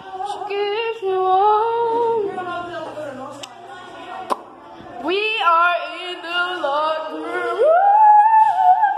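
A voice singing a melody with no accompaniment, bending between notes and sliding up into a long held note near the end.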